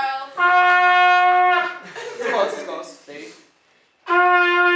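Trumpets play a held note together for just over a second. The same note starts again near the end.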